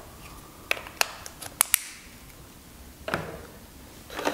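Handling noise from a plastic handheld radio and its accessories: a cluster of sharp plastic clicks and taps about a second in, a dull knock about three seconds in, then the clatter and rustle of hands rummaging among cables and a plastic desktop charger in a cardboard box near the end.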